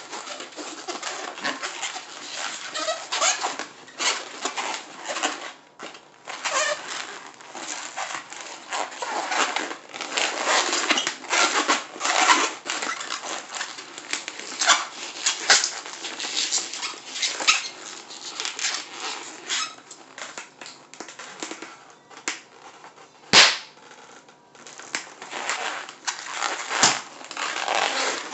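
Latex 260 twisting balloons squeaking and rubbing in the hands as they are twisted into bubbles and petals, in uneven bursts. Once, late on, a single sharp snap stands out as the loudest sound.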